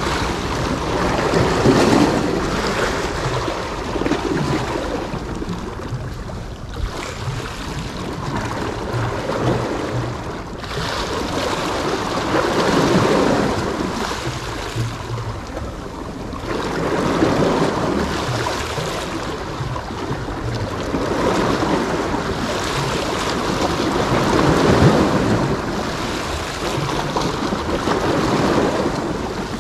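Small sea waves washing and splashing against the stone edge of a wharf, surging and ebbing every few seconds.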